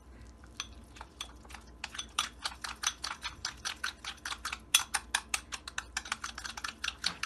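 A metal spoon stirring and beating a thick flour-and-water paste in a white bowl, clinking against the bowl in quick, even strokes. The clicks are sparse at first and settle into about four or five a second some two seconds in.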